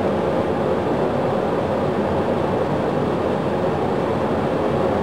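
Boeing 737 turbofan engine spooling up toward idle during its start: a steady, even rushing noise.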